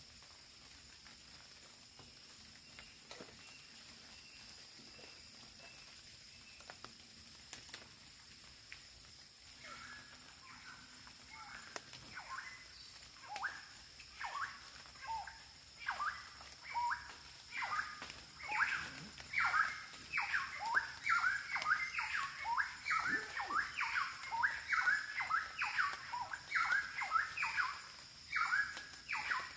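A bird calling over and over from about a third of the way in: short sweeping chirps, about two a second, growing louder. Under it runs a steady high-pitched insect drone of the rainforest.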